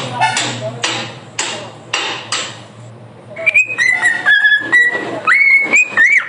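A few short rasping sounds, then a run of short whistled notes, several gliding upward.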